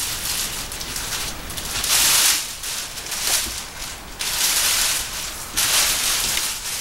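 Clear plastic bag crinkling and rustling in bursts as it is pulled off a statue figure, loudest about two seconds in and through the second half.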